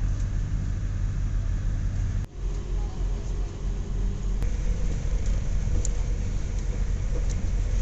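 Steady low rumble of passing motor traffic, which drops out briefly about two seconds in.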